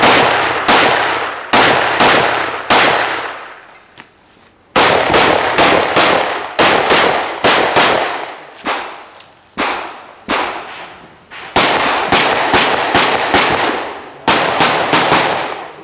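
Pistol shots fired in quick strings, about thirty in all, each followed by a short echo; the firing pauses briefly about four seconds in, then comes in more widely spaced shots for a couple of seconds before quickening again.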